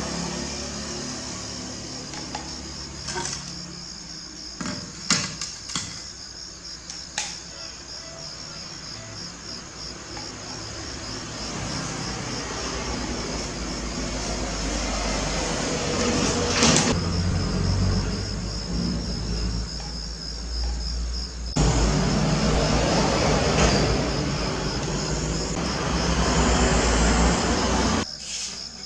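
Crickets chirring in a steady, evenly pulsing high trill. A few sharp clicks come in the first several seconds, and a broad rushing noise with a low rumble builds from about halfway, is loudest over the last several seconds, then drops off suddenly near the end.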